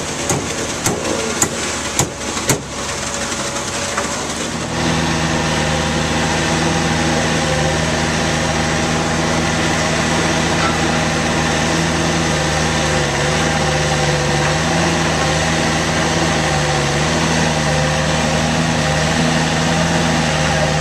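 A few sharp knocks in the first few seconds, then a concrete truck's engine comes up about five seconds in and runs steadily.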